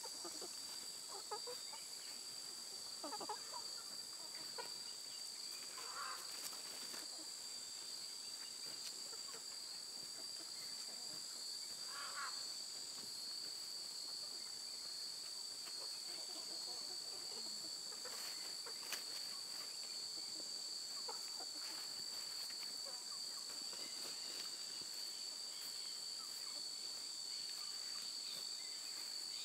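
Insects droning steadily at one high pitch, with a slight waver, while free-ranging chickens scratching in the dug soil give a few soft clucks now and then.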